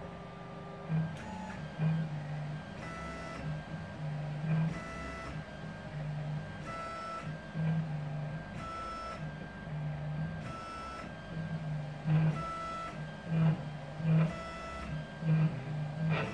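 Stepper motors of a home-built CoreXY 3D printer making repeated short whines at shifting pitches, about one a second, as the print head steps from point to point probing the bed during auto-levelling, over a steady low hum.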